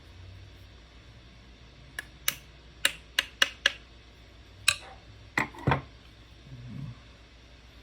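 Sharp clicks and clacks of AR-15 pistol parts being handled and fitted together during assembly: about nine in irregular succession starting about two seconds in, followed by a soft rustle near the end.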